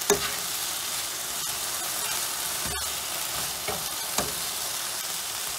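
Chicken breast and vegetables sizzling in a hot frying pan as they are stirred together: a steady hiss with a few sharp knocks of the utensil on the pan, the loudest just after the start and another about four seconds in.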